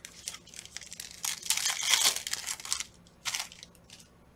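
A Panini Prizm football card pack being torn open: its wrapper crinkles and crackles in a dense run for nearly three seconds, loudest toward the end, then crinkles once more briefly just after.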